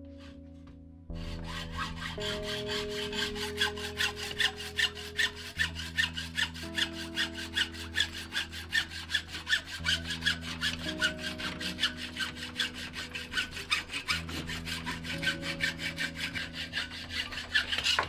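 Hacksaw cutting through a mountain-bike fork's steerer tube held in a saw guide in a vise: quick, even back-and-forth strokes that start about a second in.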